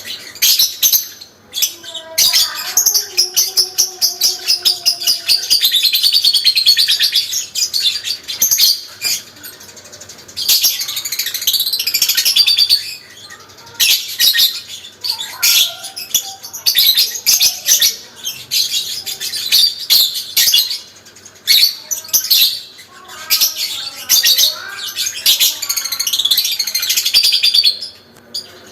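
Parblue lovebird giving its long 'ngekek panjang' song: very fast, high-pitched chattering trills in long runs of several seconds, broken by a few short pauses.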